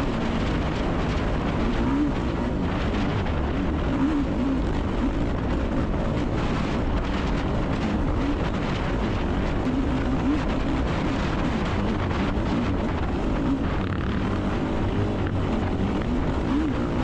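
Yamaha YFZ450R's 449 cc single-cylinder four-stroke engine at race pace, its pitch rising and falling as the throttle is worked, heard from the quad itself with steady wind noise on the microphone.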